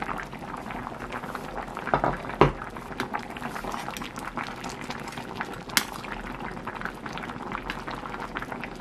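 A pot of thick kimchi soup with rice and flour dumplings bubbling at a boil over lowered heat: a dense crackle of small bubble pops, with a few louder clicks about 2 and 6 seconds in.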